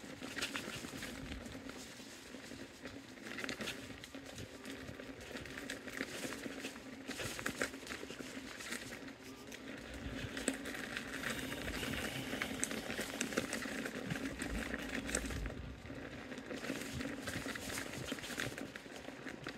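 KingSong KS-18XL electric unicycle rolling along a dirt and gravel trail: steady crackling and crunching of the tyre over small stones, with a steady low hum underneath.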